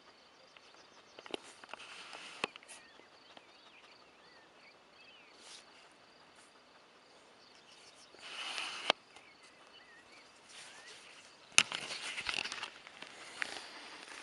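Quiet outdoor ambience: an insect chirping in a steady high pulsing trill, with a few faint bird calls. Rustling footsteps come in about eight seconds in and again near twelve seconds, with a sharp click at each.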